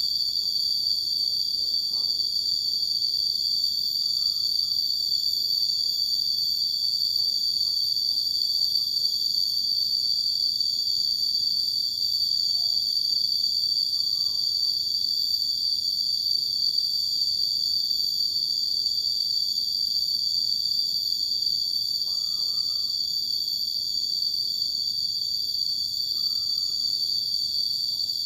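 Steady high-pitched chorus of insects in the forest at dusk, a continuous drone on several fixed pitches, with a few faint short chirps over it.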